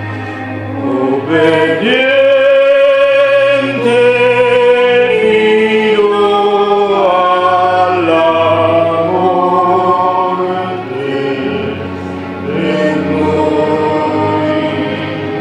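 Choral music: voices singing slow, long-held notes, one line wavering with vibrato, over a steady low sustained tone.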